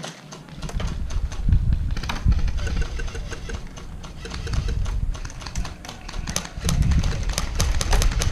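Gusty wind buffeting the camera microphone, with rapid clicking of airsoft guns firing across the field, the clicks coming thicker near the end.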